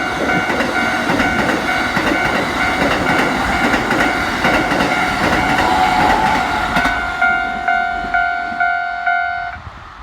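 Keikyu electric train passing over a level crossing, its wheels clattering over the rail joints, while the crossing's electronic warning bell rings in steady pulses, about two a second. The train noise dies away about seven seconds in, and the bell cuts off suddenly shortly before the end.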